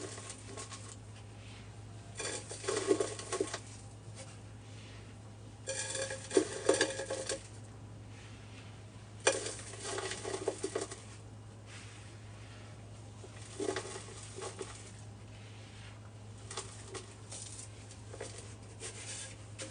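Hands squishing and mixing a thick powder-and-paste mixture in a container, in several short crackly bursts a few seconds apart. A steady low hum runs underneath.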